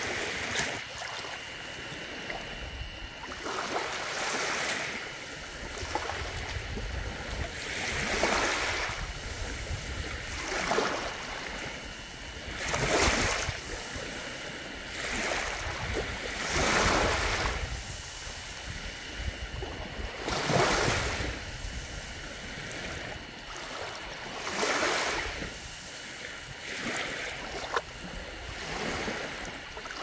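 Small waves lapping onto a shallow sandy shore. Each wash swells into a hiss and fades, one every two to four seconds.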